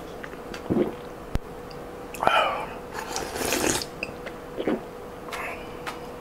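Sipping and slurping broth from a soup bowl held to the lips, in several short separate slurps with swallows and breaths between them.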